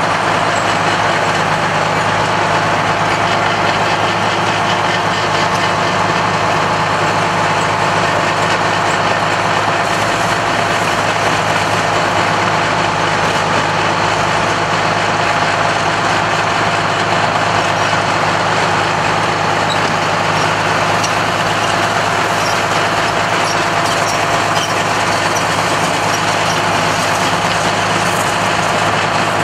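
Steady, continuous engine noise from a convoy of military trucks and vintage vehicles running as they pull out onto the road.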